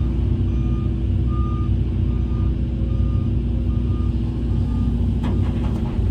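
Heavy earthmoving machine running, its diesel engine a steady low rumble under a reversing alarm that beeps about once every 0.8 seconds. There are a few metallic clanks about five seconds in.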